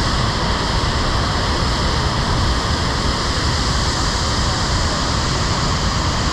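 Wide artificial waterfall pouring, a steady loud rush of falling water.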